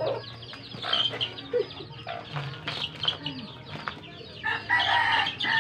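Gamefowl chicks peeping in a continual run of short, high, falling chirps, mixed with chicken clucks. A louder chicken call comes near the end.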